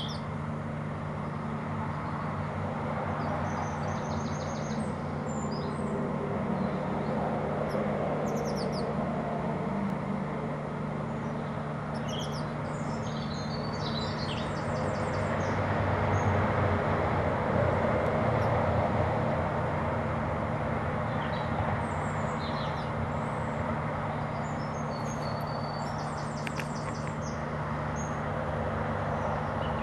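Blue tits giving high, thin calls in short bursts of rapid chirps every few seconds, over a steady low mechanical hum and rumble.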